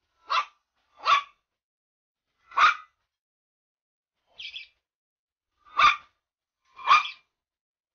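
Small white fluffy puppy barking at a tortoise in play, six short barks about a second apart; the fourth is a fainter, higher yip.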